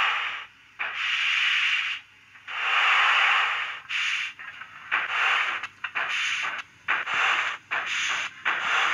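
Sampled steam locomotive exhaust from a Wheeltappers DCC sound decoder in a Bachmann 64XX GWR pannier tank model, played through a small flat sugarcube speaker. Long hissing chuffs with pauses between them quicken into a rapid, even beat as the model pulls away from a stand.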